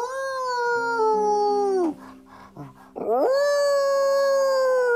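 A dog puppet's howl, voiced by a performer: two long howls. The first holds and then slides down, breaking off about two seconds in. The second starts about a second later, rises and is held.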